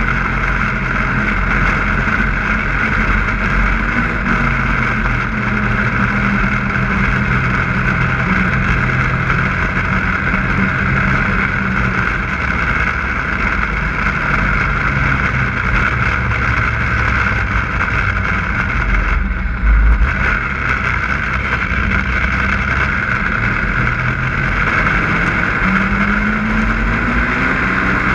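Snowmobile engine running at a steady cruising speed, with a constant rushing hiss. There is a brief low thump about two-thirds of the way in, and near the end the engine pitch rises as it speeds up.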